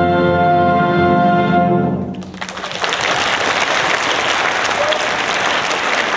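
An orchestra holds the final chord of a classical piece, which dies away about two seconds in. Audience applause then breaks out and continues steadily.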